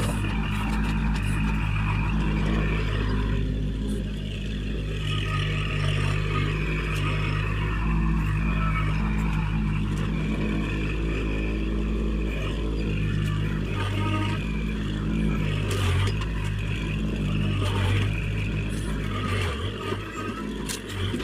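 Kubota tractor's engine running steadily under work, with small dips and rises in level.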